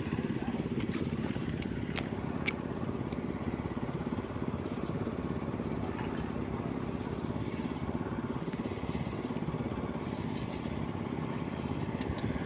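A small engine running steadily, with a couple of faint clicks about two seconds in.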